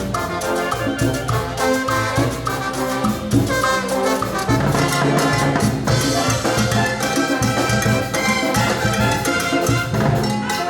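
A brass band playing Peruvian cumbia: trumpets and trombones carrying the tune over a steady dance beat of bass and percussion.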